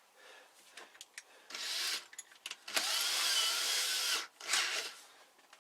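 Power drill with a countersink bit cutting two countersinks in wood. It runs in three bursts: a short one, a longer one of about a second and a half with a high whine, then a brief one.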